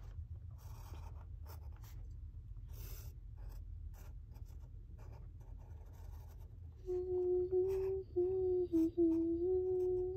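Pen strokes scratching faintly on notepad paper. About seven seconds in, a child starts humming a low tune that steps between a few notes and is louder than the drawing.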